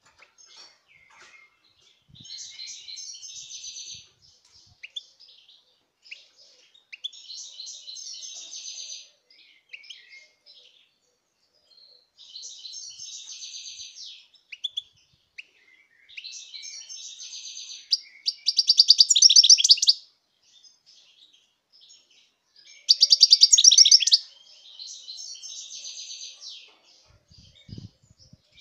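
European goldfinch singing: repeated phrases of quick, high twittering notes with short pauses between them, and two louder, denser trills past the middle.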